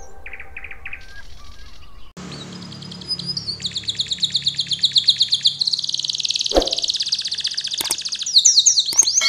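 Domestic canary singing: fast trills and rolls, each phrase a rapid string of high notes. The song begins about two seconds in and grows louder and denser, running into a long continuous roll near the middle.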